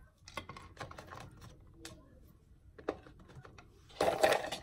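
Chunks of orchid bark clicking and rattling as hands pick them out of a clear plastic tub and press them into a plastic pot around a phalaenopsis. A louder rattling rustle about four seconds in as a hand digs into the tub of bark.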